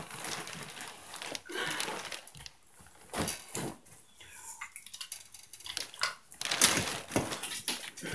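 Irregular knocks and thumps in a small room, with the strongest ones about three seconds in and again near seven seconds.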